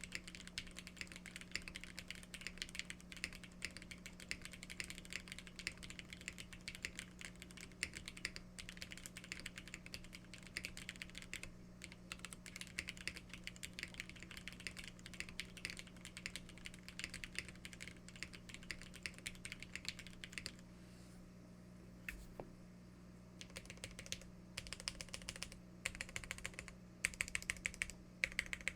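Typing on a Geonworks F2-84 TKL mechanical keyboard with lubed linear Ultraglide black switches on an aluminium plate, gasket-mounted on O-rings. Fast, continuous keystrokes, a pause of about three seconds past the middle, then slower, louder presses near the end. A steady low hum underneath.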